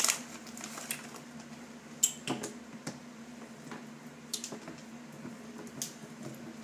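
A few scattered light taps and clicks of grapes and hands handling a clear plastic blender cup, the sharpest about two seconds in, over a steady low hum.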